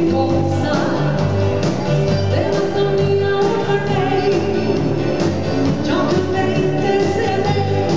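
Live dansband playing dance music: a woman sings lead over drums, bass and electric guitar, with a steady beat.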